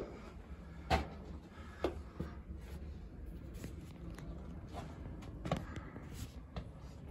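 Footsteps on a wooden plank walkway, about one step a second at first, then lighter steps, over a low steady hum.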